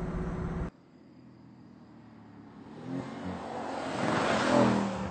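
Mercedes-Benz C63 AMG Estate approaching and passing at speed: its engine note builds, is loudest about four and a half seconds in, then drops in pitch as it goes by. A steady engine drone cuts off abruptly less than a second in.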